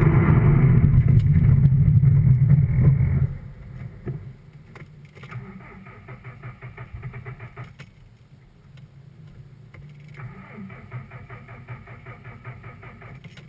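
Subaru engine being cranked by its starter for about three seconds, then stopping abruptly, leaving a much quieter low hum with faint ticks.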